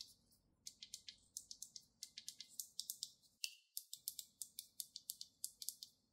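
Faint, crisp, irregular clicks, several a second, from gloved fingers handling and tapping a smartphone's glass screen and frame.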